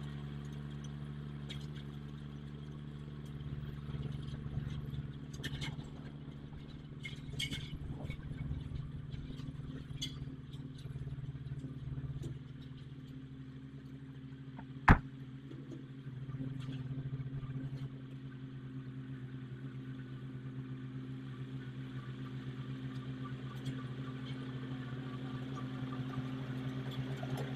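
Farm tractor engine running steadily while pulling a disc harrow through a field, with light clatter. A single sharp click about halfway through is the loudest sound.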